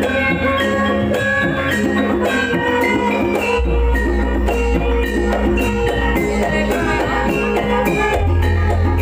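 Javanese gamelan music accompanying a kuda kepang horse dance: metallophones play a repeating melody over drums. A deep bass note holds underneath and changes about three and a half seconds in and again near the end.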